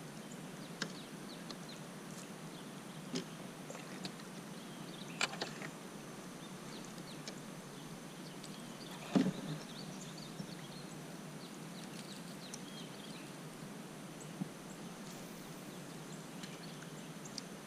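Quiet outdoor pond ambience with faint, scattered bird chirps and a few short knocks, the loudest a thump about nine seconds in.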